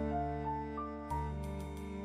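Score playback of a soft ensemble arrangement: a piano plays a rising eighth-note melody over held low chords and a moving bass line. A few light percussion taps come near the end.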